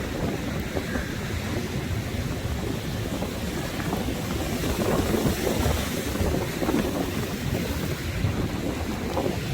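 Sea waves washing, with strong wind buffeting the microphone in a steady low rush that swells and eases.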